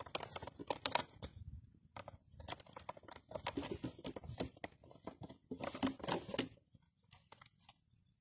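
A litter of puppies scuffling at play: irregular crinkling, rustling and light clicks come and go, with short quiet gaps.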